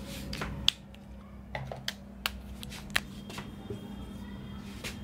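Dry-erase marker on a whiteboard: a scatter of short taps and scratches as lines are drawn, with a faint thin squeak in the last second or so. A steady low hum runs underneath.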